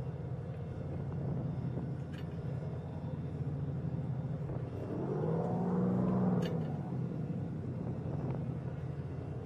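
Motorboat engine running with a steady low hum; about five seconds in, its pitch rises and falls back over roughly two seconds.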